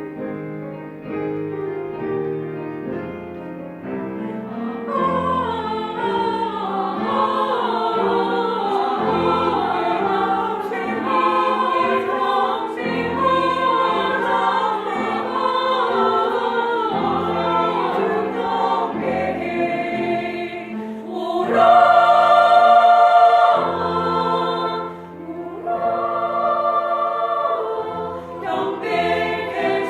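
Church vocal ensemble singing a Christmas song in close harmony, holding long chords, swelling louder about two-thirds of the way through.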